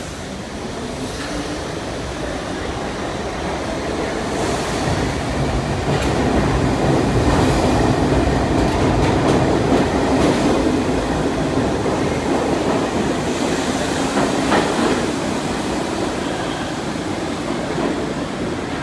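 A Bombardier R62A subway train pulls out of an underground station and accelerates away. Its wheels clatter over rail joints with a few sharp knocks. The rumble is loudest about halfway through, then fades as the train leaves.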